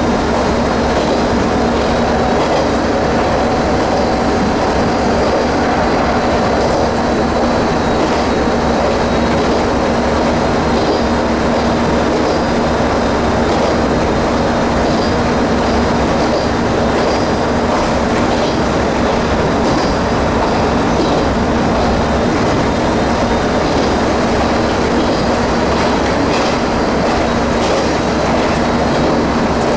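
Former JNR KiHa 30-series diesel railcar running steadily along the line, heard from inside its driver's cab: a constant engine drone over the rumble of the wheels on the rails.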